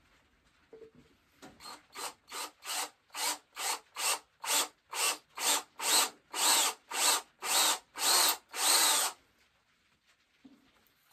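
Cordless drill boring the spout hole into the solid tip of a powder horn, run in short trigger pulses, about two a second. Each burst is longer and louder than the one before, and the drilling stops about nine seconds in.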